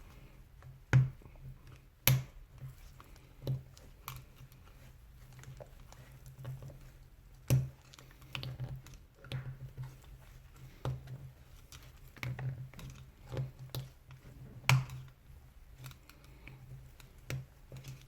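Small clicks and scrapes of a tool prying a fitted part off a Hilti TE 40 AVR rotary hammer's barrel, worked around its edge, with a few sharper clicks standing out.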